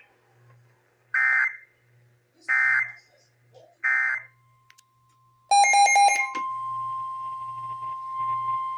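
Three short, buzzy Emergency Alert System data bursts about a second and a half apart, typical of the end-of-message code that closes a relayed warning. About five and a half seconds in, a louder multi-tone burst starts, then a steady high alert tone holds to the end, opening the next warning.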